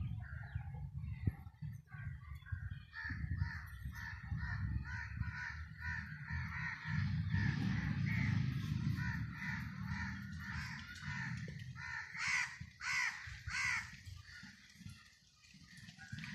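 Birds calling over and over, with three loud calls in quick succession about three quarters of the way through, over a low background rumble.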